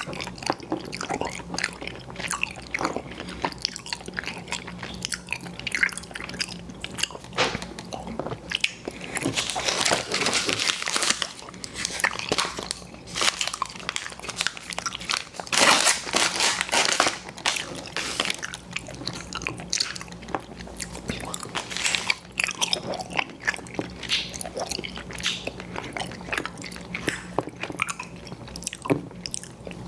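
Close-miked biting and chewing of sweets, a dense run of mouth clicks and smacks that grows thickest about ten seconds in and again around sixteen seconds.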